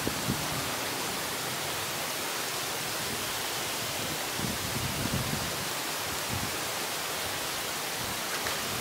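Steady, even hiss across all pitches, with a few soft low thumps about halfway through.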